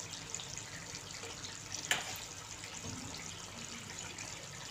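Low, steady sizzling hiss from a karahi of chicken gravy with an oiled live coal smoking in a steel bowl at its centre, the coal-smoking step of angara karahi. A single light click about two seconds in.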